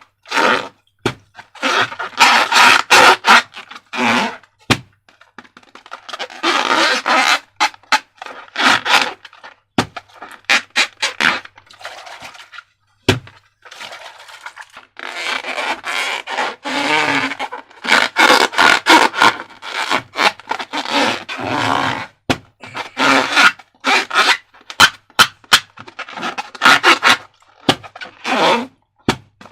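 Slime being worked by hand: uneven bursts of sticky crackles, clicks and squishes with short pauses between them.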